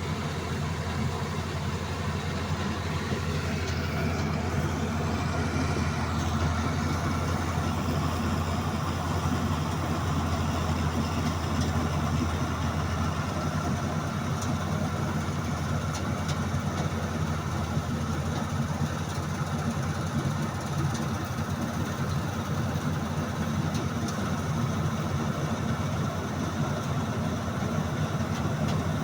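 Mahal 927 combine harvester's diesel engine running steadily, a deep, unbroken hum.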